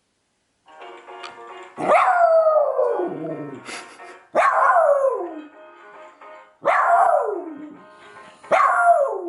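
A pet dog howling along to a pop song: four long howls, each starting high and sliding down in pitch, over the music.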